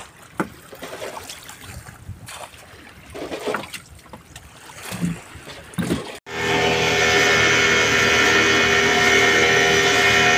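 A small fishing boat's motor running steadily at speed, starting abruptly about six seconds in and then the loudest sound. Before that there are only faint wind noise and a few light knocks around the boat.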